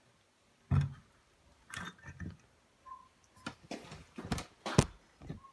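Metal outboard gear-case parts being handled, giving a series of separate knocks and clinks, the sharpest near the end.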